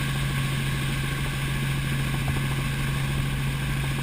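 Helicopter in flight: steady engine and rotor noise with a strong, even low hum.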